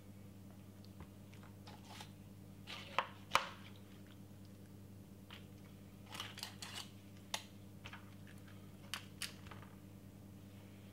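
Faint scattered clicks and crackles over a steady low hum, with a few sharper clicks about three seconds in and a small cluster a little past halfway.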